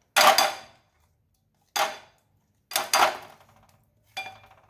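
Kitchen utensils knocking against dishes: a hand grater and bowl being handled, giving four sharp clanks with a brief metallic ring, about a second apart, the first and third doubled.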